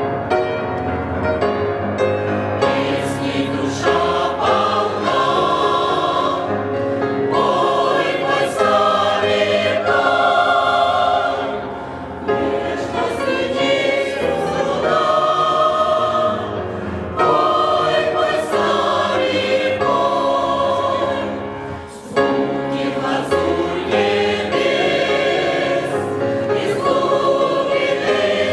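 Church choir singing a hymn in held, sustained phrases, with short breaths between phrases about twelve and twenty-two seconds in.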